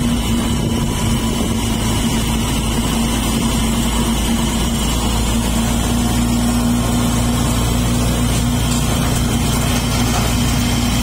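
Motor vehicle engine running at a steady speed with road noise, a constant low hum with no change in pitch.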